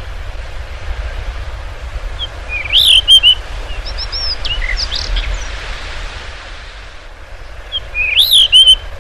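Blue rock thrush singing short fluty whistled phrases: one about three seconds in, a run of separate notes just after, and a similar phrase again near the end, over a steady low rumble.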